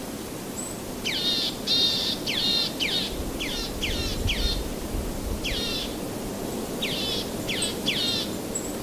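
A bird calling repeatedly in short, quick falling notes, bunched in groups, over a steady outdoor background hiss.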